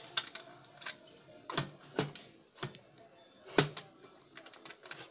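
A series of irregular clicks and knocks, a few a second, the loudest about three and a half seconds in.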